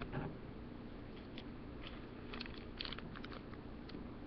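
Plastic blind-bag packaging crinkling in the hands as someone works at tearing it open. It comes as a few faint crackles, with more of them in the second half.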